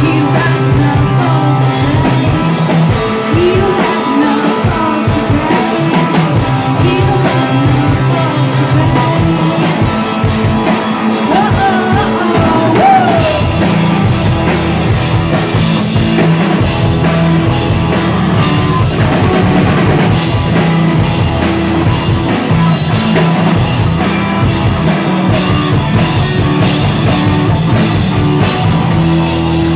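Live rock band playing loud: distorted electric guitar, bass guitar and drum kit. About halfway through the playing turns denser and heavier.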